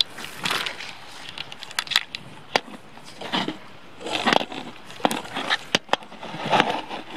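Camera handling noise: irregular scraping rustles and several sharp knocks and clicks as the camera is moved and gripped by hand.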